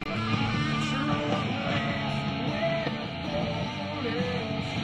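Rock music with guitar playing.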